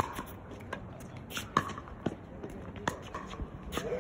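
Tennis ball struck by rackets and bouncing on an acrylic hard court: a string of sharp pops spaced about half a second to a second apart.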